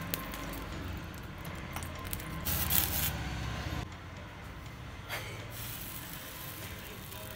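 Water sprinkled on a small iron dosa tawa hissing and sizzling, loudest in a burst about two and a half to three seconds in, with a shorter hiss again around five seconds.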